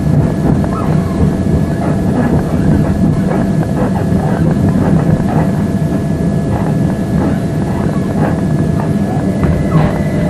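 Interior running noise of a c2c Class 357 electric multiple unit at speed: a steady rumble of wheels on rail with a steady whine over it, and faint scattered clicks and squeaks. Near the end the whine starts to rise in pitch.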